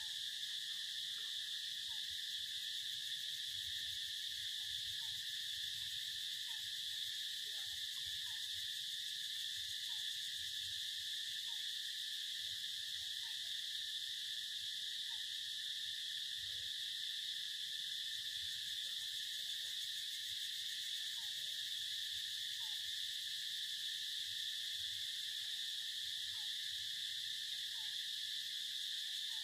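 Steady, high-pitched drone of an insect chorus that does not change, with faint short calls scattered through it.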